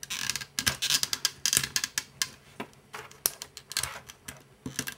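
Irregular plastic clicks and knocks of a hair dryer's case, handle and cover plate being handled and fitted back together.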